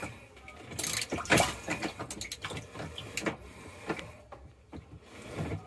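Needle-nose pliers clicking and scraping against the plastic agitator in a top-load washer tub as it is worked loose from its shaft, a string of irregular knocks and scrapes. The agitator is stuck on the shaft by corrosion.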